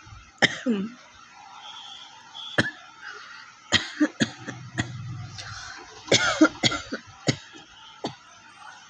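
A person's real dry cough: about a dozen short, sharp coughs, some coming in quick clusters of two or three, with no phlegm in them.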